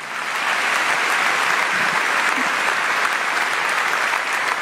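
Large concert audience applauding, building up over the first second and then holding steady.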